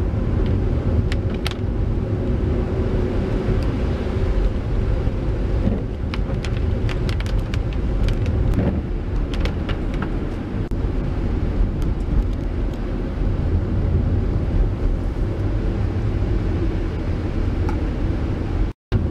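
Steady road noise of a car driving on a wet road: engine and tyres rumbling, with scattered sharp ticks throughout. The sound drops out for a moment near the end.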